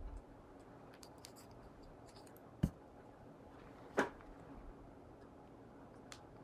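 A few light clicks and knocks as a glass crystal-ball lamp is handled on its wooden light-up base, the two loudest about two and a half and four seconds in, over quiet room tone.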